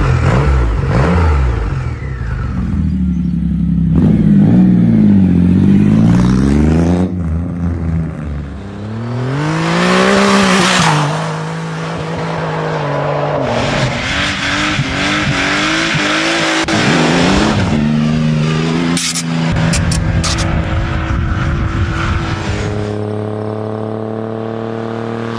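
Triumph Rocket III's inline three-cylinder motorcycle engine revving, its pitch rising and falling with the throttle several times, then running steadily at speed.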